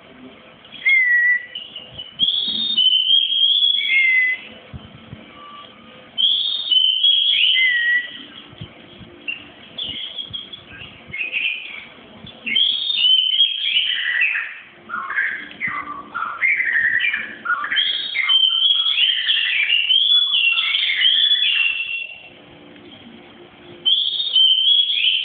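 White-rumped shama singing: loud whistled phrases broken by short pauses, then from about halfway a longer run of quick, varied notes.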